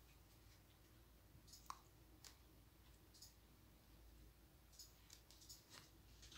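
Near silence: room tone with a few faint, scattered clicks and rustles.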